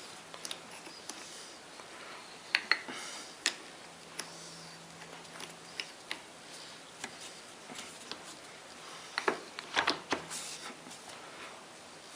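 Scattered light clicks and knocks of metal tools and parts being handled at a workbench. They come in two clusters, a few a little after two seconds in and more about nine to ten seconds in, with no motor running.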